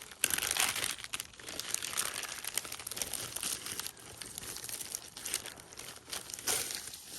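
Crinkly wrapping rustling and crackling as it is handled while a brook trout is taken out of it, with louder crackles near the start and about six and a half seconds in.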